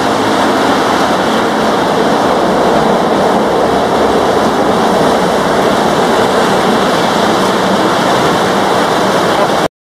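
Heavy rain hissing steadily, mixed with the fading roar of a Citilink Airbus A320's jet engines and the spray from its wheels as it slows on a flooded runway after landing. The sound cuts off suddenly just before the end.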